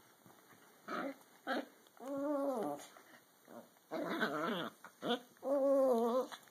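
A dachshund and a toy fox terrier play-wrestling and vocalising: two short yips, then three drawn-out, wavering, squeaky growls, each under a second long.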